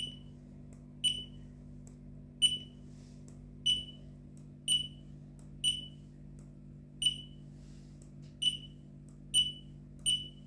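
Handheld barcode scanner giving its short high good-read beep about ten times, roughly once a second, as it reads the IMEI barcode on one tracking unit after another.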